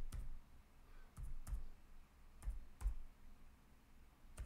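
Computer keyboard keys being tapped one at a time while digits are typed: about six separate clicks, spaced unevenly, roughly one every half second to second.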